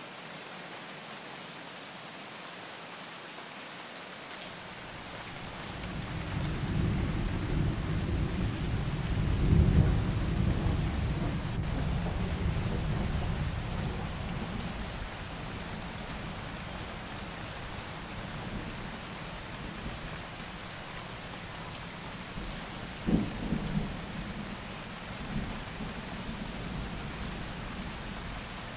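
Steady rain hiss with a long low thunder rumble that builds about five seconds in and fades away after about ten seconds. A few short low thumps come near the end.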